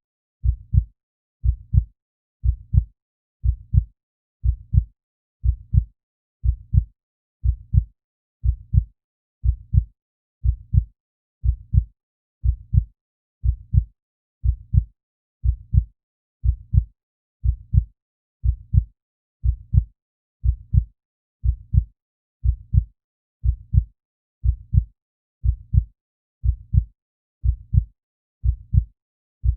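Heartbeat sound effect: a steady, even rhythm of low double thumps (lub-dub), about one beat a second.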